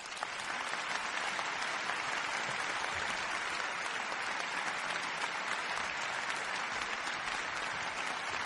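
Crowd applause sound effect: dense, steady clapping of many hands that swells in over the first second.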